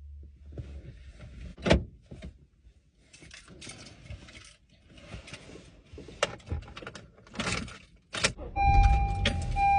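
Rustling and scattered sharp clicks, like things being handled and knocked about, with a louder click about two seconds in and another near the end. Near the end a low rumble and a steady high tone come in.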